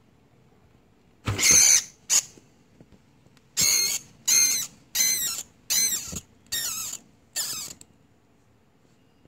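A white feeder rodent squealing in distress as it is caught and constricted by a ball python. There are eight shrill, wavering squeals, starting about a second in and repeating every half second or so; the first is the longest and loudest.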